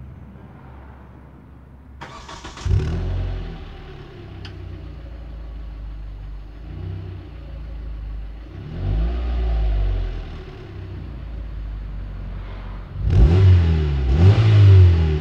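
Hyundai Coupe 2.0's four-cylinder engine through its stock exhaust: started about two and a half seconds in, then idling, revved once around the middle and blipped several times in quick succession near the end.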